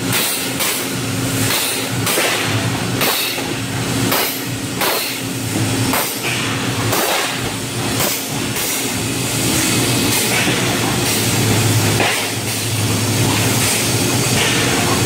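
Plastics-plant machinery running: a steady low hum with irregular knocks or clanks about every second.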